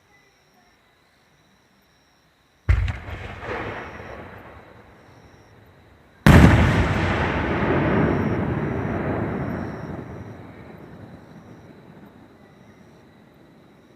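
Two fireworks shells bursting close by: a sharp bang about three seconds in, then a louder bang about six seconds in whose crackle and echo die away slowly over several seconds.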